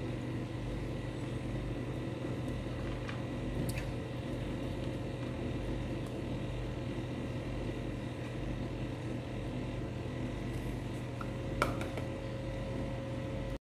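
Steady appliance hum with several faint held tones, with a couple of faint light clicks over it.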